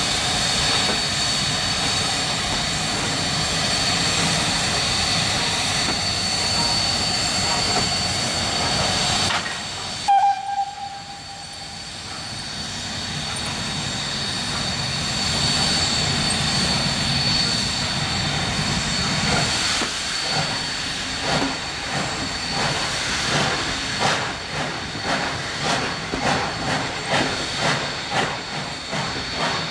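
Ol49-59 steam locomotive hissing steadily, then a short whistle blast about a third of the way through. As the engine starts the train, the hiss swells and the exhaust chuffs begin, quickening toward the end as it pulls away.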